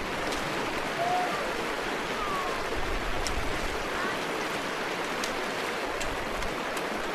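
Mountain stream rushing steadily over rocks, with faint distant voices calling briefly.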